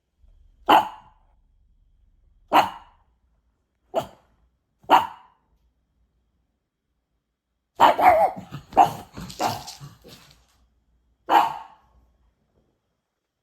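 A dog barking in short single barks, four in the first five seconds, then a quick run of several barks a few seconds later and one more near the end.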